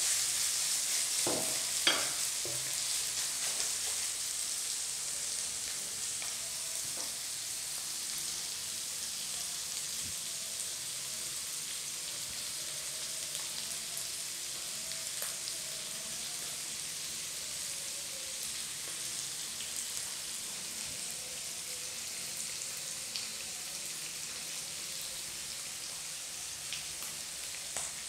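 Chicken pieces frying in a little oil in a non-stick pan, sizzling steadily, on their way to golden brown. A wooden spatula scrapes and taps the pan a couple of times in the first two seconds.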